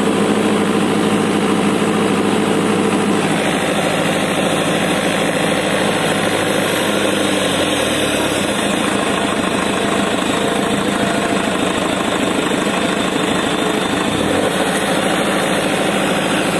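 Sonalika 750 tractor's diesel engine running steadily at about 1700 rpm, in gear and held against the hand brake. This is a load test of how far the revs drop with the turbo hose disconnected. The low engine note shifts about halfway through.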